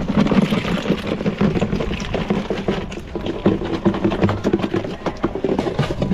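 Conch shells and live octopus tipped out of a plastic bucket onto wet rocks: a run of many quick clattering knocks as the shells tumble against each other and the stones, with a wet splattering.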